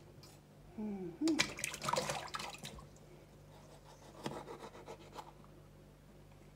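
Hands handling and rubbing vegetables over a plastic bowl during food prep: scratchy rustling and rubbing, busiest from about one to three seconds in, with a few lighter clicks later.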